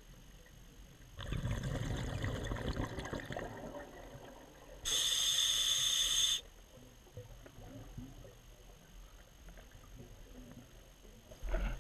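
A scuba diver's regulator breathing. Exhaled bubbles rumble out for a few seconds starting about a second in, then an inhalation hisses through the regulator for about a second and a half, starting and stopping sharply. A short burst of noise comes at the very end.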